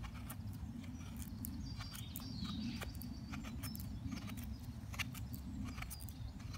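Bushcraft knife with a slightly convex-ground blade shaving thin curls down a wooden stick to make a feather stick: a run of short, irregular scraping strokes over a low steady rumble.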